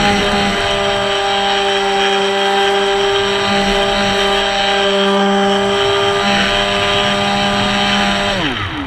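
Electric motor and propeller of an RC foam plane running at steady throttle, heard up close from the onboard camera as a loud, steady whine with slight wavers in pitch. Near the end the pitch drops sharply and the sound fades as the throttle is cut.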